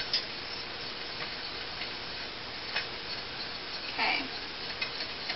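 A spoon stirring cocoa mixture in a stainless steel saucepan, giving a few scattered light ticks against the pan over a steady hiss.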